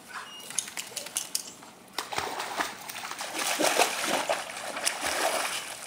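Golden retrievers splashing through a swimming pool. After a few light clicks, the splashing starts sharply about two seconds in and continues as they paddle and wade, churning up the water.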